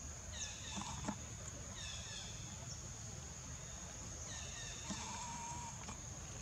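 A steady, high-pitched insect drone with three short, falling animal calls: about half a second, two seconds and four seconds in.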